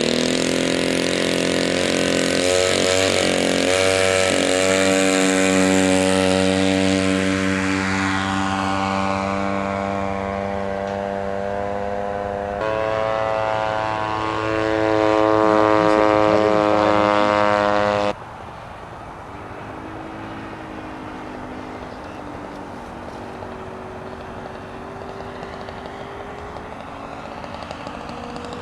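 A radio-controlled model airplane's motor and propeller running loud and steady at high speed, its pitch shifting as the plane flies. About 13 seconds in the sound changes abruptly, and about 18 seconds in it drops to a much fainter, thin drone.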